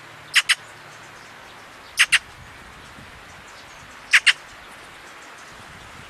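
A magpie calling: three short double notes, about two seconds apart.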